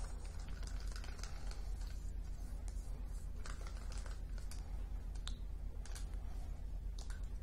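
Wooden popsicle stick stirring thick acrylic paint and water in a small cup, scraping and knocking the cup's sides in light, irregular clicks. This is the thorough mixing of thinned paint that keeps it from spotting in a pour.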